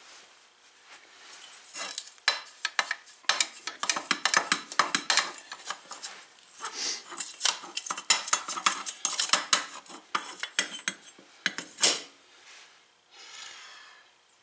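Quick, uneven metal clinks and scrapes as a stuck brake disc on an ATV's axle is wiggled and worked loose, with one louder clank near the end.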